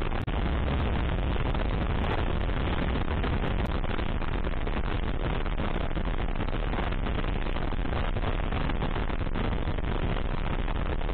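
Steady rush of wind on the microphone over the drone of a dual-sport motorcycle riding along. The noise cuts out for an instant just after the start.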